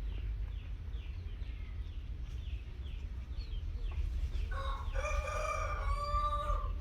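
A rooster crows once, a single pitched call of about two seconds starting some four and a half seconds in. Under it, short falling bird chirps repeat about three times a second.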